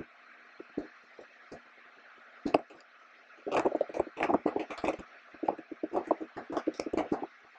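Typing on a computer keyboard: a few separate clicks, then a fast run of keystrokes starting about three and a half seconds in and stopping shortly before the end.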